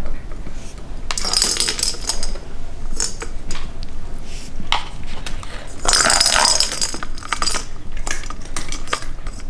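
Light metallic jingling and clinking in short spells, the biggest about a second in and again around six seconds in.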